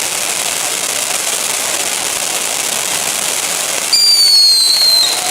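Steady hiss, then about four seconds in a loud, high whistle that starts suddenly and slides slightly down in pitch for about a second: a whistling firework.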